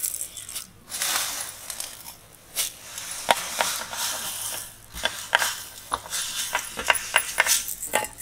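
Dry vermicelli strands rustling and clicking as they are swept by hand off a plastic tray and dropped into an aluminium pot of hot water, with many small sharp ticks over a dry rustle.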